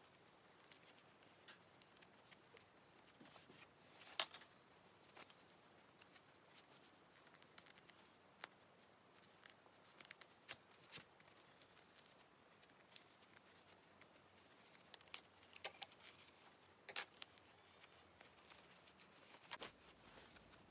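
Faint rustling and scattered light clicks of thick cotton canvas being handled and pushed through a narrow opening, as a small sewn pincushion is turned right side out.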